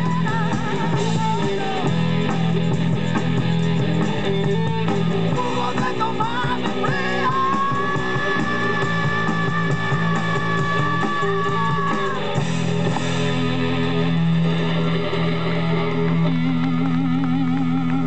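Blues-rock band playing live, with guitar and bass. A long held lead note runs from about seven to twelve seconds in.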